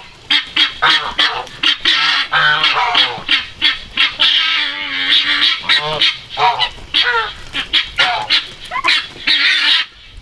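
A flock of domestic geese honking loudly and over and over, their calls overlapping, as they crowd in expecting to be fed.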